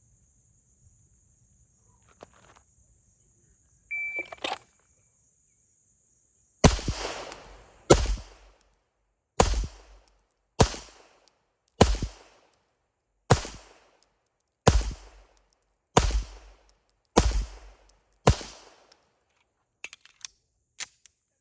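A shot-timer beep, then ten pistol shots from a 9mm Pilot Mountain Arms Operator 1911, fired slowly and evenly about one every 1.3 seconds. The first shot comes about two and a half seconds after the beep, and the last about 14.4 seconds after it.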